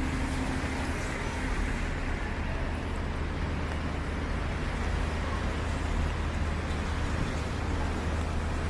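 Steady city street traffic: a low rumble of car engines with the hiss of tyres on wet pavement.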